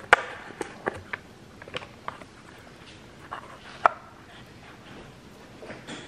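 Scattered sharp clicks and light taps of sunglasses being handled and set into a pink glasses organizer case on a countertop. The loudest click comes just after the start, and another sharp one near four seconds.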